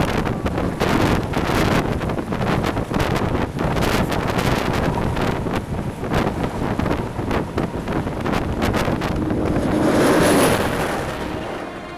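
Strong wind buffeting the microphone in gusty thumps, with a vehicle going by on the road, swelling about ten seconds in.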